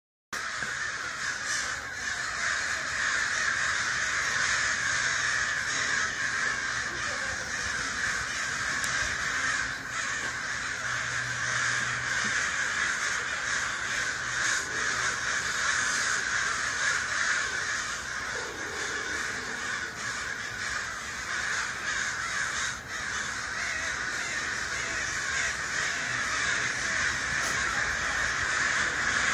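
A large flock of birds calling loudly and without pause, their calls merging into one dense, continuous chorus.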